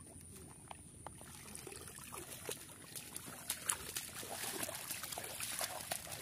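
Shallow muddy water in a flooded paddy field splashing and trickling, with many small irregular splashes and drips that get louder toward the end.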